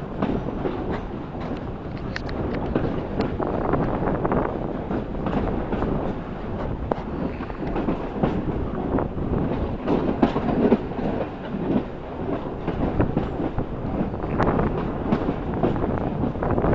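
A train running along the line, heard from inside a carriage: a steady rumble of running noise with the wheels clicking and clattering over the rails.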